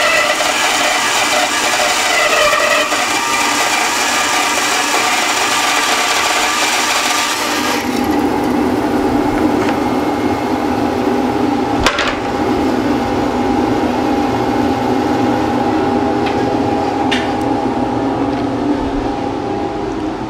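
Bandsaw resawing a board into a 3/8-inch veneer: the blade cuts through the wood for about eight seconds, then the cut ends and the saw runs on free with a steady hum. A few sharp knocks come in the second half, the loudest about twelve seconds in.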